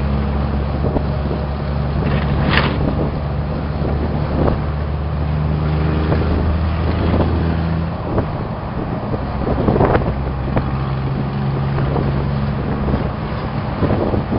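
Steady low engine drone of a vehicle on the move, with wind noise on the microphone. The engine note shifts for a couple of seconds about eight seconds in, and wind gusts hit the microphone about two and a half and ten seconds in.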